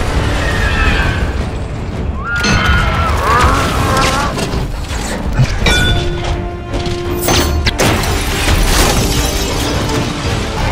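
Blockbuster action-film sound mix: a music score under shattering glass and debris, crashes and booms. Giant-robot mechanical sounds run through it, including rising and falling whines a couple of seconds in.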